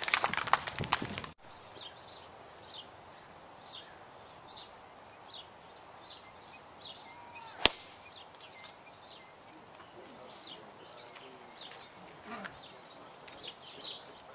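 Brief clapping and voices that cut off suddenly about a second in, then birds chirping repeatedly. About halfway through, a single sharp crack of a golf club striking the ball on a tee shot.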